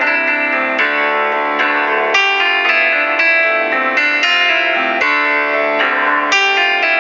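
Background instrumental music: a melody of plucked notes, a new note starting every half second or so.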